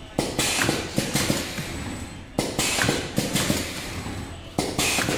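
Vertical form-fill-seal pouch packing machine running, its sealing jaws cycling about every two seconds. Each cycle is a sharp clack followed by a fading rushing noise, three times over.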